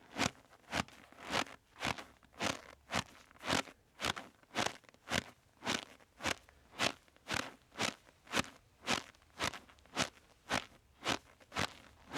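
Crunching footsteps at a steady walking pace, just under two steps a second.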